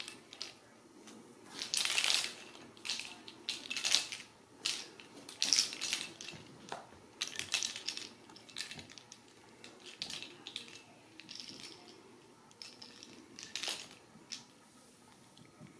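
Ragdoll kittens at play on a rug with a plastic ball toy on a wand: an irregular run of short scratching, scuffling and rattling sounds, busiest in the first half and thinning out near the end.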